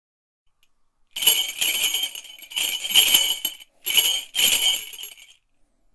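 Small bells jingling, shaken in four bursts of about a second each, starting about a second in.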